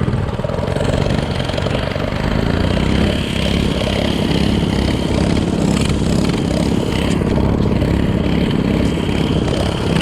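Small mini bike engine running steadily.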